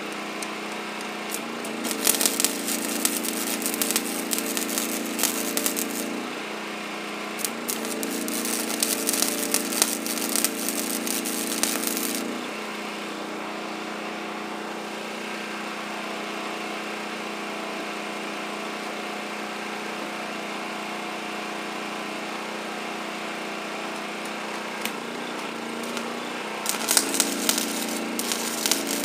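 Stick welding on a steel plow frame: the arc crackles and sizzles in three runs of about four seconds each, the last starting near the end. Underneath is a steady machine hum that rises slightly in pitch while the arc burns.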